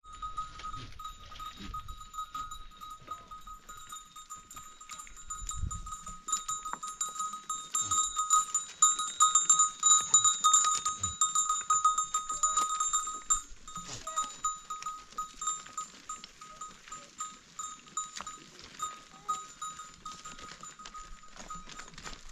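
Metal bells hung on a herd of goats, jangling continuously as the animals move. One steady ringing pitch sounds through rapid clinking, loudest from about 8 to 13 seconds in.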